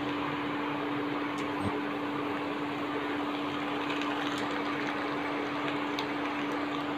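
Steady mechanical hum: one constant tone over an even hiss, with a few faint ticks.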